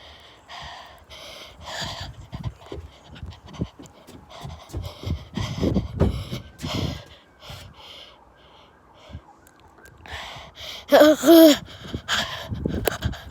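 Rapid panting breaths close to the microphone, with a short, loud pitched cry about eleven seconds in.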